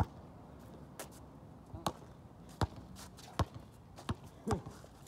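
Basketball bouncing on a hard outdoor court: five or six sharp single bounces in an uneven rhythm, a little under a second apart.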